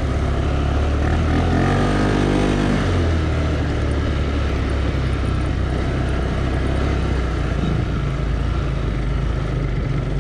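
ATV engine running steadily while riding, with a lot of wind and track noise. A second, higher engine note comes in briefly about a second or two in.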